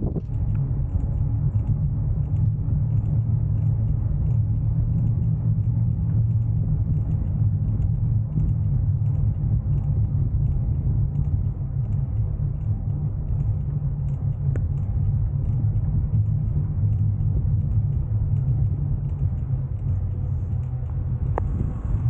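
Steady low rumble from riding a bicycle, made of tyre noise on the path carried through the camera mount and wind on the microphone.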